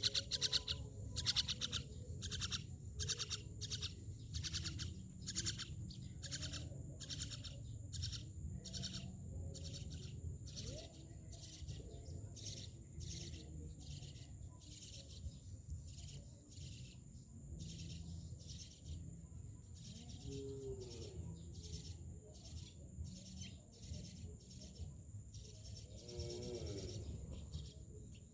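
Myna birds chirping in a long, even series of short, high calls, about two a second, over a low steady hum.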